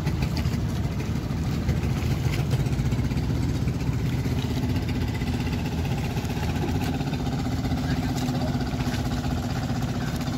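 Boat engine running steadily at low speed, with a second steady tone joining about halfway through.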